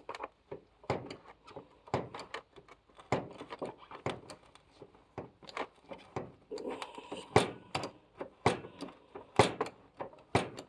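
Handheld hydraulic crimper being pumped to crimp a terminal onto a wire: a run of irregular clicks and knocks from the pump handle and ram, about two a second.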